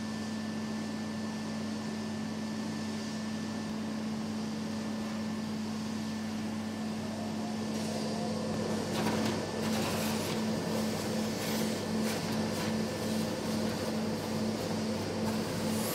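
Steady machine hum in an industrial 3D-printing hall, with a low held tone. From about nine seconds in, a pulsing beat of about two a second joins the hum, along with a few short bursts of hiss.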